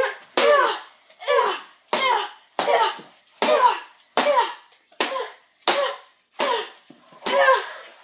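A child's short, repeated vocal cries with each swing of a plastic toy lightsaber, about a dozen evenly spaced, each falling in pitch.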